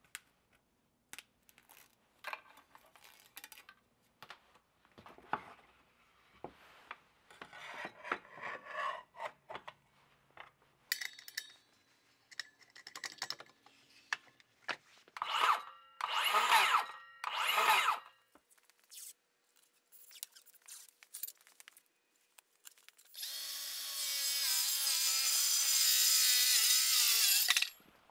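Clicks and metal rattles as a new 7-1/4-inch, 60-tooth blade is fitted to a circular saw and its arbor bolt tightened with a wrench. The saw is then spun up twice in short bursts about two seconds apart. Near the end it makes a steady cut of about four seconds through wood, the loudest sound.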